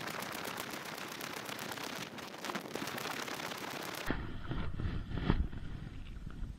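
Paddling a kayak: a steady rush of noise with rapid crackling for about four seconds. Then the sound turns duller, with rubbing and a few knocks as a clear plastic waterproof pouch is handled close to the microphone.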